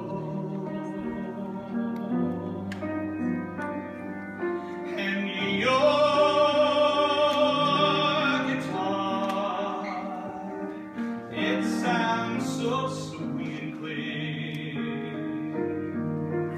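Live song with a singer over instrumental accompaniment and a steady bass line. About five and a half seconds in, the singer holds one long note with vibrato for about three seconds, the loudest part.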